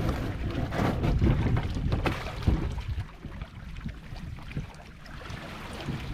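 Wind rumbling on the microphone with water splashing around a kayak in rough water. It is heaviest in the first three seconds, then eases.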